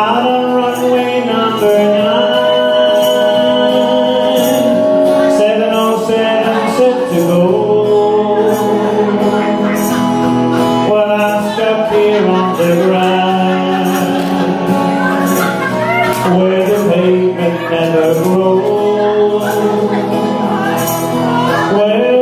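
Acoustic guitar and button accordion playing a folk song together live, with a man singing.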